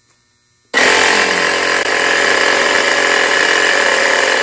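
A Stanley FatMax jump starter's built-in air compressor switches on suddenly about three-quarters of a second in and runs loud and steady, pumping air into a car tyre through a hose on the valve.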